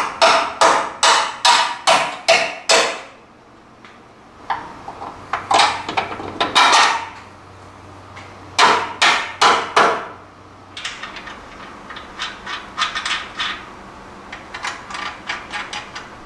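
Hammer blows in quick runs of about three a second while a new lower control arm is driven into its mounts on a truck frame. Lighter, quicker taps come in the last few seconds.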